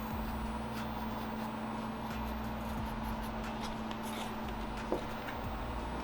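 Steady mechanical hum with a constant low tone, under faint clicks and rustles of handling, and one short knock about five seconds in.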